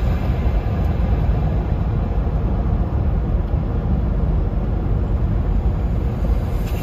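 Steady low road rumble from inside a car travelling at highway speed.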